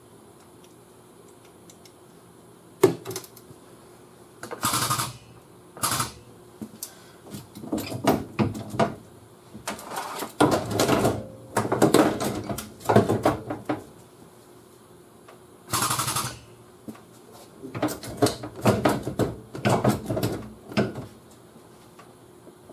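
Tool and clamp hardware worked by hand on a car's steel body: a sharp metal knock, a few short hisses, and two long stretches of rapid rattling clicks.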